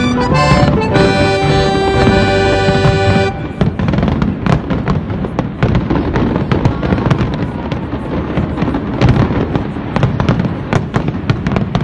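Music with steady notes for the first three seconds or so, cutting off abruptly. Then aerial fireworks bursting overhead in a dense, irregular run of bangs and crackles.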